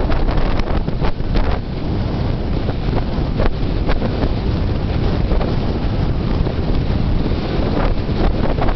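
Heavy wind buffeting the microphone of a camera held out an open car window at highway speed, over the car's road noise. A steady rumble with a few sharper buffets.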